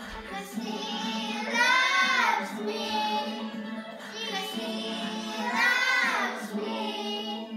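Child vocals singing a song over backing music, in drawn-out phrases whose notes glide up and down.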